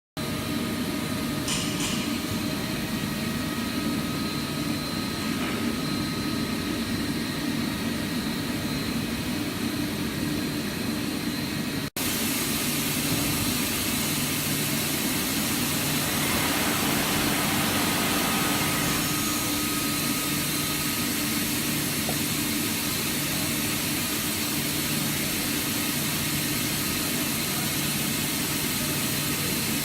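Mazak Integrex 300-IV ST CNC turning center running under power: a steady machine hum with faint steady whining tones. It breaks off for an instant about twelve seconds in, then carries on.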